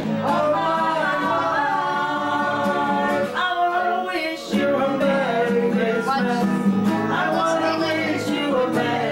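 A song playing: singing over guitar accompaniment.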